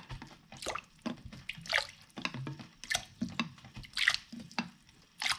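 Spoonfuls of vinegar poured one after another from a tablespoon into a pot of water, each landing with a short splash and drip in quick, irregular succession.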